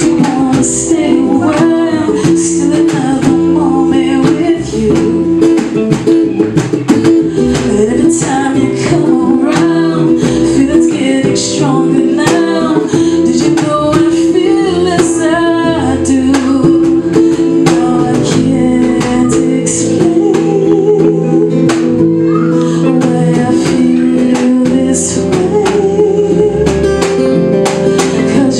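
A small live band playing a song: a singer over a strummed acoustic guitar, an electric bass and a djembe hand drum.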